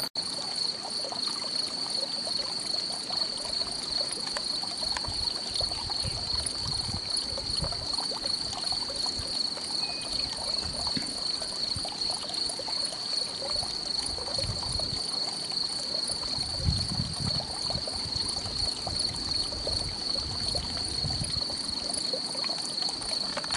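Crickets chirping in the grass: a continuous high-pitched insect trill with a fast, even pulse, joined now and then by low rumbles.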